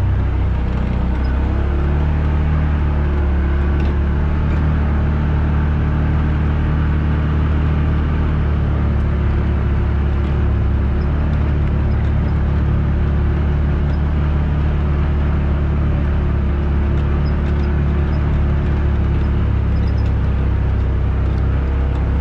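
Off-road vehicle engine running steadily at cruising speed, heard from on board while driving a dirt trail, a deep steady drone with no revving.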